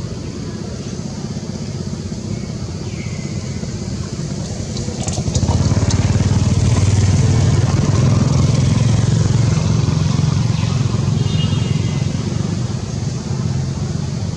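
Motor vehicle engine running nearby, a steady low rumble that grows louder about five seconds in and stays up.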